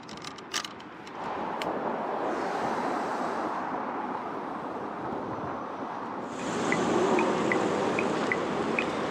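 Wind and road noise from riding an electric kick scooter. About seven seconds in, the scooter's turn-signal beeper starts: short, high, evenly spaced beeps, about two and a half a second.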